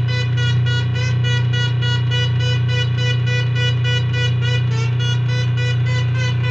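A loud, unbroken buzzing drone on one low pitch, rich in overtones, with a fast regular wobble in its upper overtones: the video's 'awful noise'.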